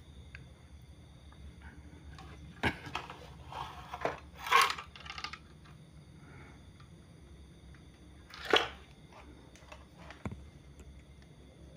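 Handling noises from a TV circuit board being turned over on a workbench and its cables moved: scattered clicks, knocks and scrapes, the loudest about four and a half and eight and a half seconds in, over a faint steady low hum.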